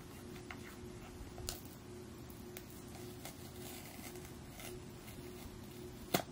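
Long acrylic nails clicking and scratching at the sealed paper wrap of a new iPhone box while the pull tab is peeled away, with scattered small clicks and one sharper click near the end. A faint steady hum runs underneath.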